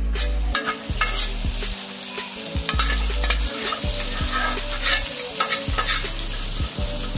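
Marinated chicken pieces sizzling and frying in hot oil with fried onions in a kadai, a steady hiss that grows brighter partway through. Utensils scrape and knock against the pan throughout.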